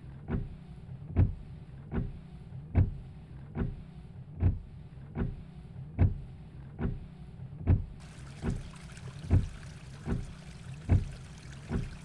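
Evenly spaced low thuds, a little more than one a second, over a steady low hum. A hiss joins about eight seconds in.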